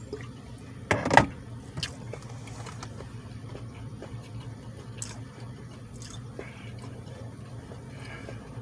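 Steady low hum inside a car, with one short, loud clatter about a second in and a few faint clicks after it.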